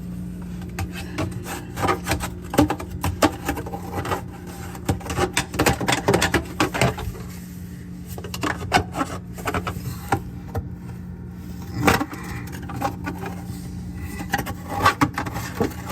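Irregular scraping and chipping as a hand tool digs built-up ice out of a Frigidaire refrigerator that is frosting over, with a steady low hum underneath.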